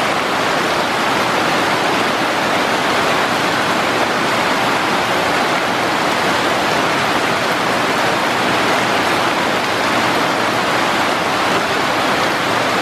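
Steady rain shower falling on rainforest foliage: an even, unbroken hiss with no separate drops standing out.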